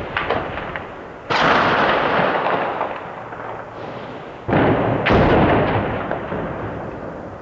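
Shelling explosions: two heavy blasts, about a second in and again past halfway, each starting suddenly and echoing away slowly across the built-up city. A further sharp bang lands just after the second blast, and a few faint gunshots crack near the start.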